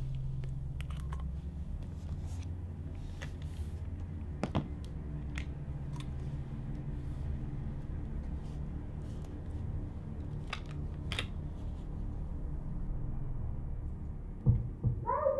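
Low steady drone of a film's ambient sound bed, with scattered faint clicks and crackles. Near the end comes a thump, then a short wavering cry.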